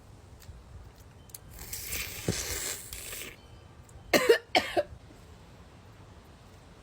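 A person coughs twice in quick succession, a couple of seconds after a longer breathy rush of noise.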